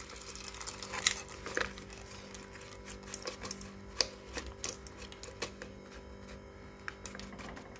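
Popcorn kernels pouring from a packet into an aluminium pressure cooker, dropping in as scattered, irregular clicks and ticks against the metal base. A faint steady hum runs underneath.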